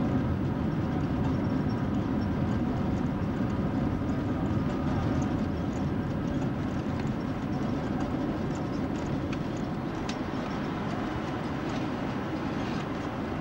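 Airliner cabin noise during the landing roll: a dense rumble from the wheels on the runway, with a steady engine hum through it. The noise slowly fades as the aircraft slows.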